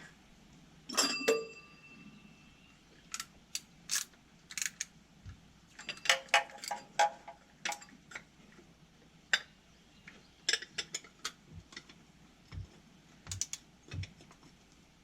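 Metal tools clinking and clattering: one ringing metallic clank about a second in, then scattered clicks and light knocks.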